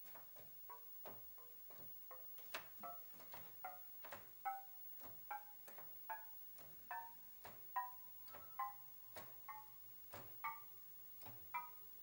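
Keys of a five-octave keyboard pressed one at a time, each press giving a light click and a short, quiet note from a Commodore Sound Expander synthesizer module. The notes come about three every two seconds and step upward in pitch, like a slow ascending run being tested key by key.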